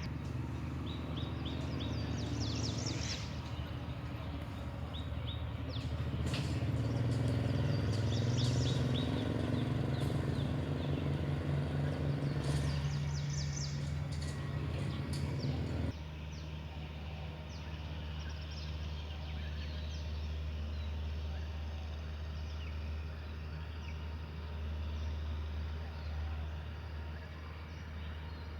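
Outdoor ambience: birds chirping now and then over a steady low rumble, which drops abruptly a little past halfway.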